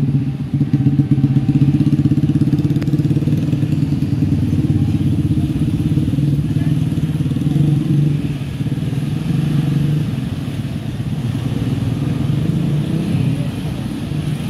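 Several motorcycle engines running in a steady low drone as road traffic moves across the railway crossing, loudest about a second in.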